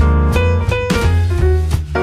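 Upbeat jazzy background music with a steady drum beat, bass and piano.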